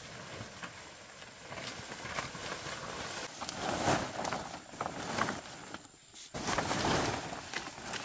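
Leaves and undergrowth rustling in irregular bursts as dong leaves are picked and handled, with footsteps through the vegetation. A brief lull comes just before six seconds in.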